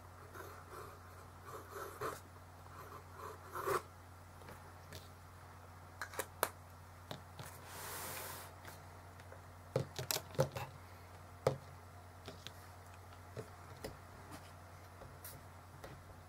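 Pen scratching on a paper notepad in short strokes for the first few seconds, then a brief sliding rustle as the pad is pushed across the desk about eight seconds in. Several sharp clicks follow as pens are set down on the hard desktop.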